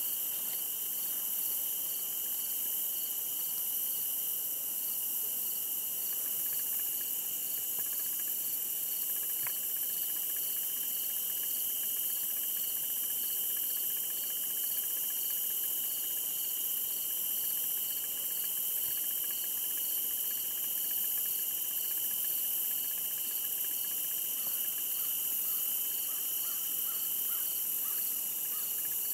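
Steady evening insect chorus, an unbroken high trilling, with one pulsing call repeating a little more than once a second over it.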